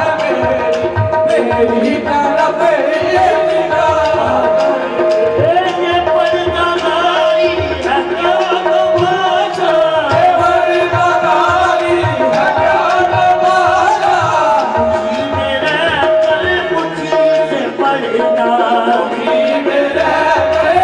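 Live qawwali music: tabla drumming a steady rhythm under sung and played melody, with a note held throughout.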